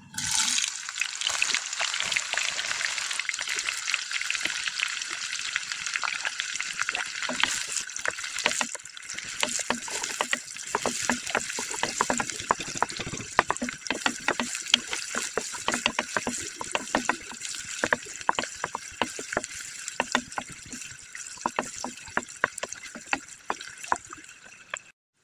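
Sliced onions sizzling and crackling in hot oil in a nonstick pan, starting abruptly as they go in and loudest at first, with a wooden spoon stirring through them.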